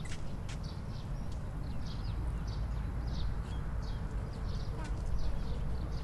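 Birds chirping over and over in short high calls above a steady low rumble, with a few sharp knocks.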